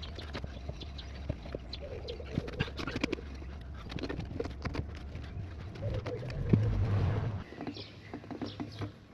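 Manual motorcycle tyre bead breaker being worked against a tyre sidewall, with repeated knocks and clicks and a louder strained stretch about six seconds in as the bead is pressed away from the rim.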